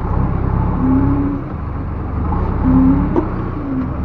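Backhoe loader's diesel engine running steadily, swelling briefly twice with a short whine, and a sharp click about three seconds in.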